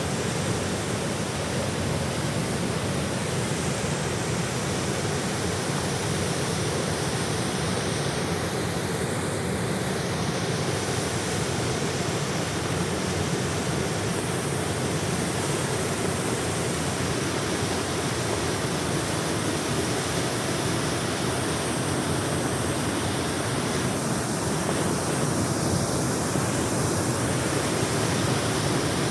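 Jägala waterfall: water pouring over the falls, a steady, unbroken rush.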